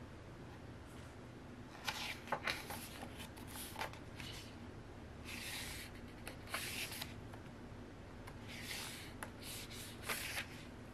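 Glossy pages of a photo book being turned by hand: a series of papery swishes and rustles, with a few light taps of paper.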